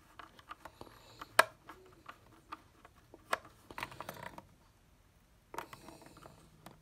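Small clicks and scrapes of a Phillips screwdriver turning the wire terminal screw on a plastic model train power pack, with a few sharper clicks, the loudest about a second and a half in.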